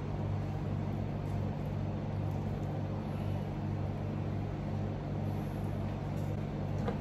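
Steady low mechanical hum with a few faint light clicks.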